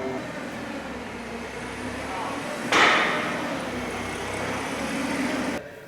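Winery grape-processing machinery, the sorting table and destemmer, running with a steady mechanical rumble, with one loud clattering knock about three seconds in.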